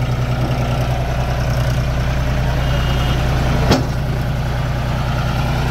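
John Deere 5050D tractor's three-cylinder diesel engine running steadily with the throttle raised a little. A single sharp click about four seconds in.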